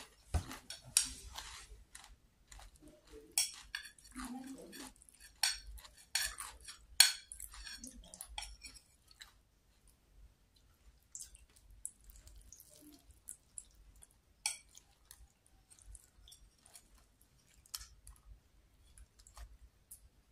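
A metal spoon clinking and scraping against a plate as pieces of batagor are cut and scooped. The clinks come thick and sharp through the first half, the loudest a little past halfway through that stretch, then thin out to scattered faint ticks.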